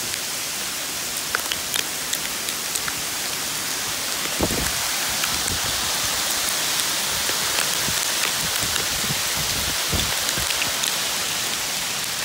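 Hailstorm: hail falling steadily on the forest floor and pine branches, a constant hiss dotted with sharp ticks of single stones striking. Low knocks and rustles join in from about four seconds in.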